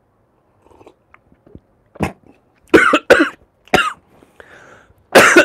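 A man coughing after a sip of coffee, the cough of something going down the wrong way. There is one short cough about two seconds in, then several harsh coughs, the loudest and longest near the end.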